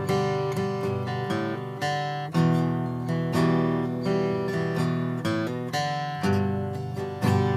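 Acoustic guitar playing a chord progression, strummed chords linked by single-note hammer-on and pull-off fills; fresh chords ring out about two seconds in and again near the end.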